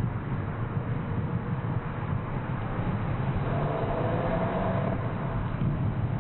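Steady road and driving noise of cars on the move, a low rumble of tyres and wind. A faint engine note comes through in the middle for about two seconds.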